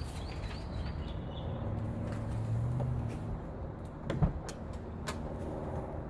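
Clicks and one sharp clunk from a Lexus GX470's driver's door, the clunk about four seconds in and the loudest sound, over a steady low hum.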